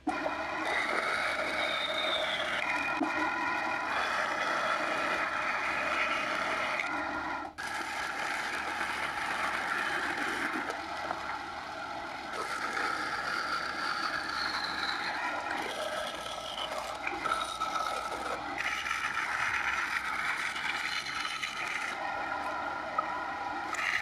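Bandsaw running and cutting through wood, a small block and then a barked branch, its blade rasping through the grain. The tone and rasp change from cut to cut, with a brief sudden break about a third of the way through.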